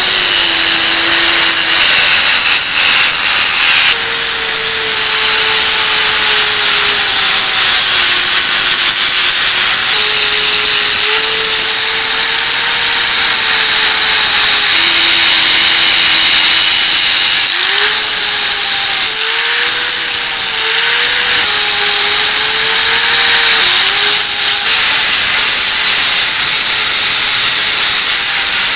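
Angle grinder with an abrasive disc grinding a steel part held in a vise: a loud, steady grinding hiss over the motor's tone, which drops in pitch and recovers each time the disc is pressed harder into the metal.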